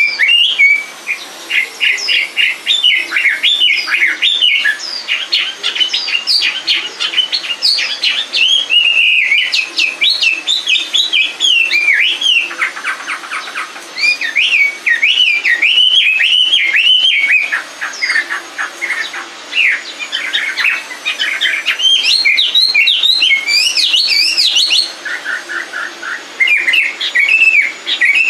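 Chinese hwamei singing: a long, loud, varied song of rapid whistled phrases, slurs and trills, broken by a few brief pauses.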